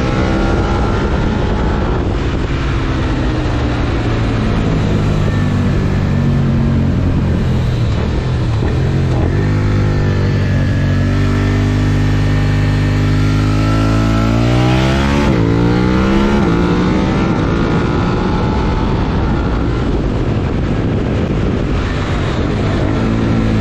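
Suzuki SV650X's 90-degree V-twin, breathing through a Yoshimura R77 exhaust, riding downhill with its revs rising and falling. Its revs climb steeply and then drop about fifteen seconds in.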